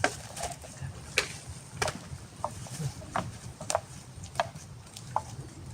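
Repeated heavy chopping blows on wood, about eight sharp strikes roughly one every 0.7 seconds, each with a short ring.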